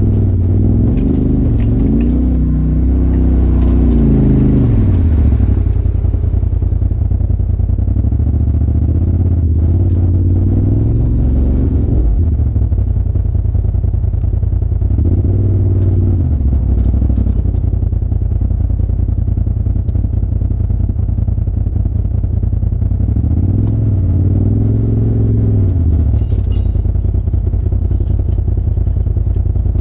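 A Polaris RZR Turbo side-by-side's turbocharged engine running at low speed while crawling down a rocky trail. The revs rise and fall under the throttle four times, with light clatter from the rocks and chassis.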